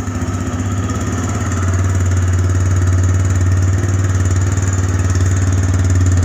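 TVS Raider 125's 124.8 cc single-cylinder engine idling with its exhaust thump, a steady, even pulse. It gets slightly louder about a second and a half in.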